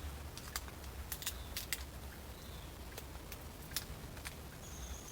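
Scattered small clicks and crackles from the tubeless tire plug kit being handled: its sticky, rubber-coated fiber plug strips are being taken out and worked in the hands. The clicks come at irregular intervals over a faint, steady low hum.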